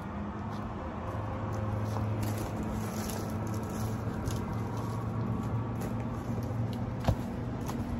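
Dry sticks and twigs crackling and snapping as they are handled and laid for a fire, with one sharper snap about seven seconds in. Under it runs a steady low engine hum from distant traffic.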